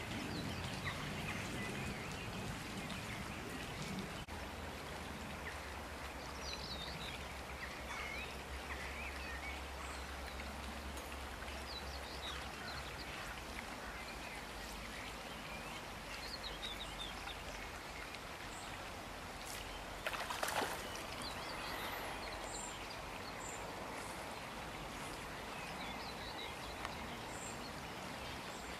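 Stream water running steadily, with scattered short bird chirps and a brief louder burst of noise about two-thirds of the way through.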